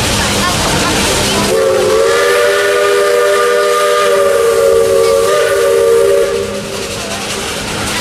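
Steam locomotive whistle blowing one long blast, a chord of several notes sounding together, starting about a second and a half in and stopping just after six seconds.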